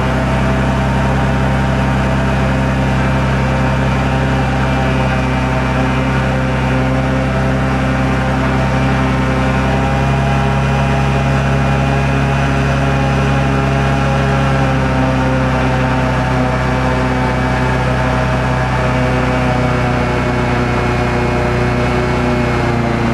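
Airboat's engine and air propeller running steadily under way, a loud even drone holding nearly the same pitch throughout.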